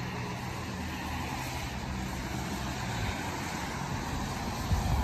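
Road traffic on a rain-wet street: a steady hiss of tyres, with the low hum of a vehicle engine that fades out about three seconds in.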